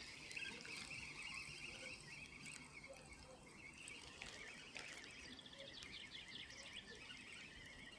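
Faint birdsong: small birds chirping steadily, with a denser run of higher chirps about six seconds in.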